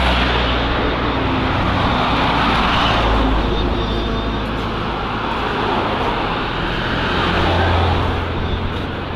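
Motorcycle engines running in a column, with heavy road and wind noise that swells and eases a few times as machines go by.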